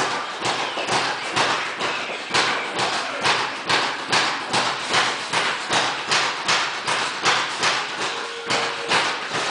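Background music with a steady percussive beat, about two hits a second.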